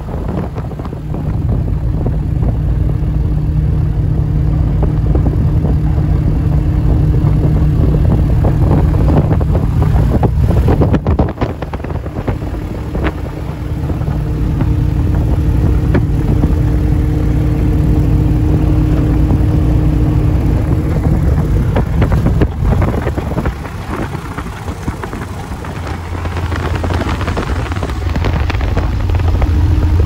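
Cessna O-1G Bird Dog's six-cylinder air-cooled Continental engine and propeller running steadily at low power, heard from inside the cockpit during a ground run on grass. The engine note dips briefly about eleven seconds in and again a little after twenty seconds, then grows louder near the end.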